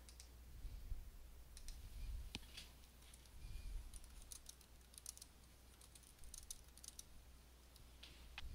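Faint, irregular keystrokes on a computer keyboard mixed with mouse clicks.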